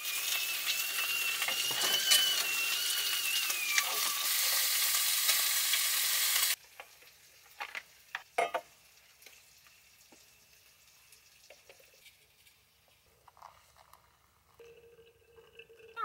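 Food sizzling in a frying pan on a gas stove, with a stovetop kettle's thin high whistle over it for the first few seconds; the sizzle cuts off abruptly about six seconds in. After that, only faint clicks of a small container being handled.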